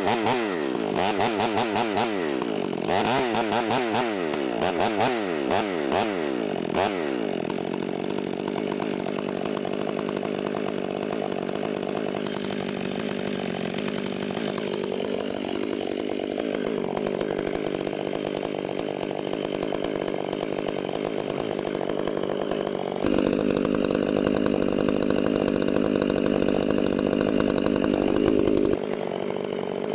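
Chainsaw revving up and down several times for the first seven seconds or so, then running steadily under load as it cuts wood. It gets louder about three-quarters of the way in and eases off just before the end.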